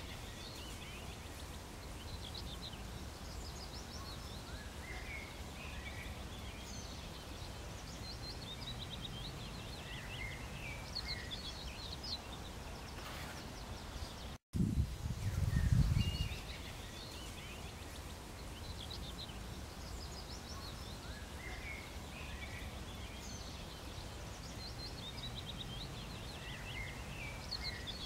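Small birds chirping and singing in the background over a steady low outdoor rumble. About halfway through, the sound cuts out for an instant, then comes a brief low rumble like wind on the microphone, and the same birdsong pattern repeats.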